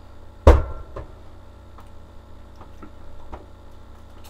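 A single sharp knock about half a second in, then a few faint, scattered clicks over a low steady hum.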